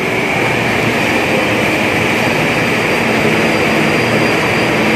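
Deep-frying in a large iron kadai of hot oil: a loud, steady sizzle of batter-coated pieces in the bubbling oil as they are stirred with a slotted ladle, over a low, steady roar.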